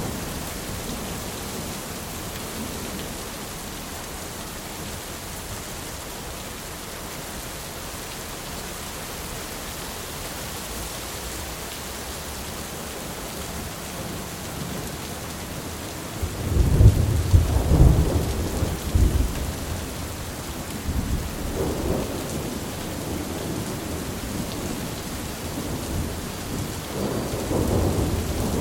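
Steady heavy rain hissing, with thunder breaking out suddenly about halfway through as a deep rolling rumble that swells and fades, and further lower rumbles toward the end.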